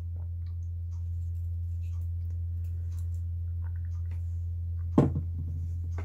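Steady low electrical hum, with faint scattered clicks and taps of pocket knives and their case being handled. A brief vocal sound about five seconds in.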